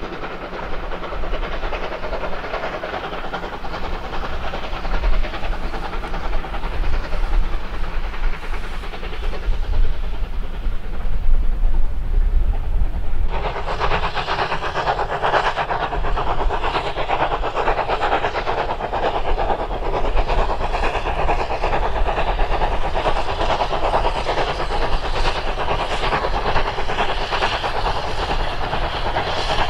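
Steam train running by on the line, a steady rumble of wheels on the rails. About halfway through the sound changes suddenly to a louder, steady hiss and rush of steam and running gear from a steam locomotive hauling a short rake of wagons.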